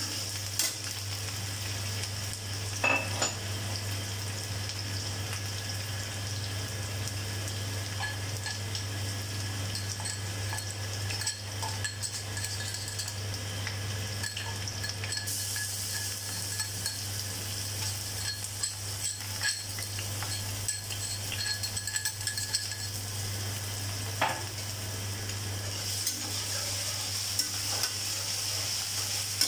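Chopped vegetables sizzling in hot oil in a metal kadai while a flat metal spatula stirs them, scraping the pan and clinking against it a few times. A steady low hum runs underneath.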